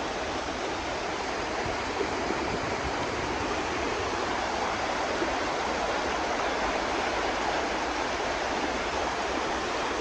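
Fast-flowing shallow mountain river rushing steadily over stones and boulders.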